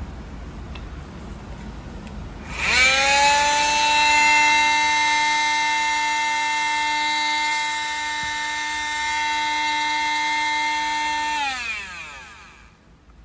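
Makita TM3010CT oscillating multi-tool on a test run: switched on about two and a half seconds in, it quickly comes up to speed and holds a steady buzzing whine. Near the end it is switched off and winds down, its pitch falling until it stops.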